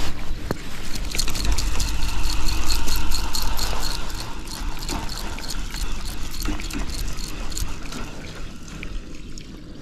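Spinning reel being wound in, with a fast, even ticking of about six ticks a second that fades near the end, over a low rumble of wind or handling on the microphone.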